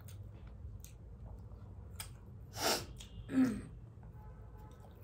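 A woman sneezing: a sharp burst of breath about two and a half seconds in, then a second, voiced burst a moment later. Faint eating clicks and smacks sound around it.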